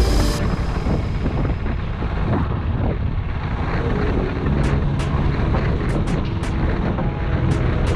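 Motorcycle on the move: engine running under heavy wind rush on the microphone, with a steady engine note coming through from about halfway.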